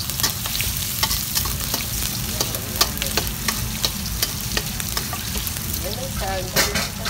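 Minced garlic sizzling in hot oil and garlic fat in a metal wok. A metal spatula stirs and scrapes against the wok in quick, irregular clicks over the steady hiss.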